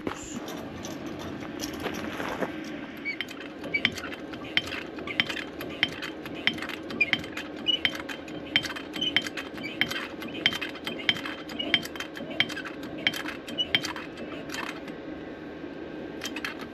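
Repeated sharp metallic clicks and clinks, roughly two a second, from the pulling rig of hoist, chain and body jack as a crash-damaged car body is pulled straight.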